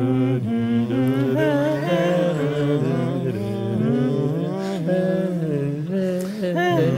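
Several men's voices humming and singing a wordless tune together in harmony, a cappella, the notes held and stepping from one to the next, over a low held line.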